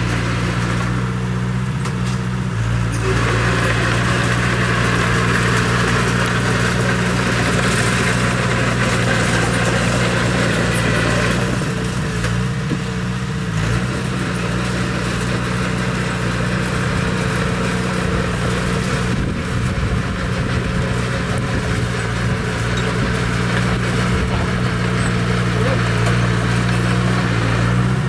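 Bulldozer's engine running steadily under a constant low drone, with a broad rushing, grinding noise from the machine working over it that eases for a few seconds near the middle.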